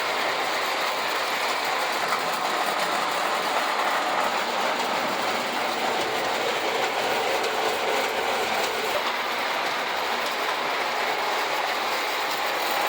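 Antique Ives tinplate toy train running on its track: a steady, continuous clatter of metal wheels and mechanism.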